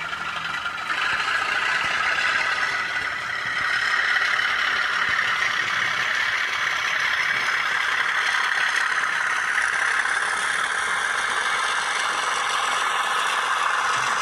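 N gauge model train running on the track, giving a steady mechanical rattle and whir. It grows louder about a second in and again about four seconds in.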